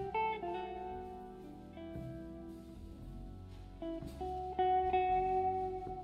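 A live band playing an instrumental: a slow guitar melody of long held notes over double bass, organ and drums.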